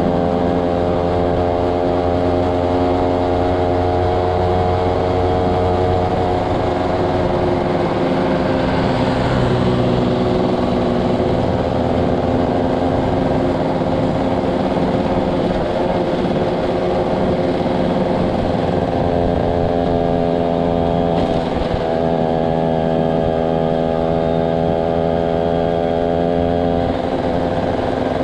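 Yamaha SS motorcycle engine running at a fairly steady cruising speed while being ridden, its note drifting only slightly up and down, over road and air noise. There is a brief rush of noise about three quarters of the way through.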